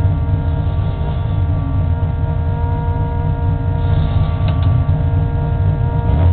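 Race car engine idling, heard from inside the stripped cabin: a steady low rumble with several steady whining tones above it.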